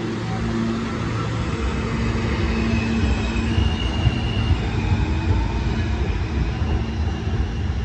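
R160A subway train pulling out of the station and running into the tunnel: a steady low rumble of wheels on rails with a few faint steady hums from the train.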